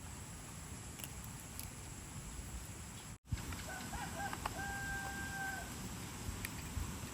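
A rooster crowing once, with short rising notes running into one long held note about halfway through, over a steady outdoor hiss.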